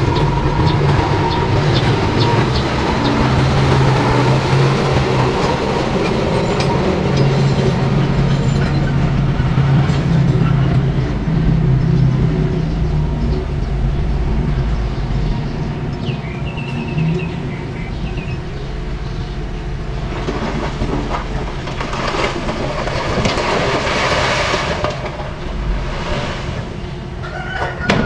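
Heavy diesel dump truck engines running with a steady low drone and mechanical rattling. The drone eases off after about halfway, and a rougher, noisier stretch of sound follows about three quarters of the way through.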